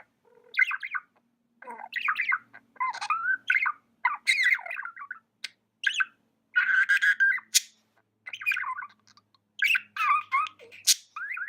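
Budgie chirping and chattering in short warbling bursts with brief pauses between them, including a couple of sharp high squeaks.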